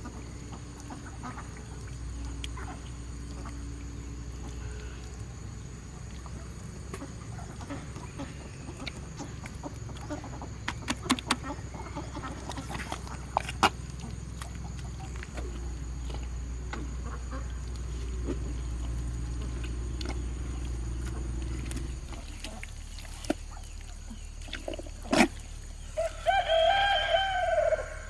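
Chickens clucking over a steady low hum, with a few sharp clicks midway. Near the end a chicken gives one long, loud, arching call.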